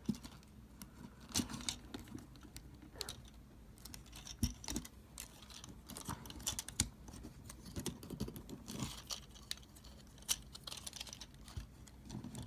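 Small plastic clicks and rattles of a Transformers action figure's parts being folded and pushed into place by hand, coming irregularly throughout.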